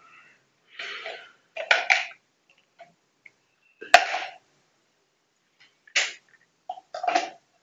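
A toddler's short breathy huffs and grunts, a few separate bursts. About four seconds in there is a single sharp knock: a plastic sippy cup set down on a tile floor.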